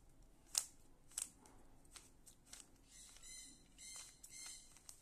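Plastic Rubik's cube being turned by hand: faint clicks as its layers are twisted, about one every half second, then a quicker run of clattering turns in the second half.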